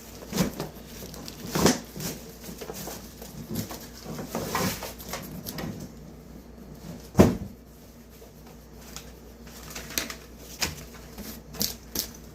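Cardboard box and packaging being handled while unpacking an electric oil-filled radiator heater: irregular rustles, scrapes and knocks, with one louder thump about seven seconds in.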